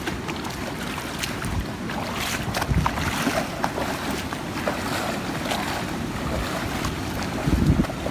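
People wading on foot through floodwater about a foot or two deep, with uneven splashing and sloshing at each step, and wind buffeting the microphone.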